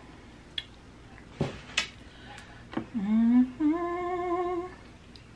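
A woman humming "mm-mm" with her mouth closed while eating, in two parts about three seconds in: a short low rising hum, then a longer, higher, steady one. A few short sharp clicks of eating come before it.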